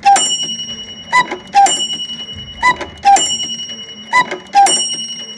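Seiko Birdie QPB328R quartz cuckoo clock striking the hour: its bellows-driven cuckoo calls a two-note cuck-oo, high then low, about every second and a half, and a small bell is struck with each call and rings on. About four calls fall here, part of an eight-call strike.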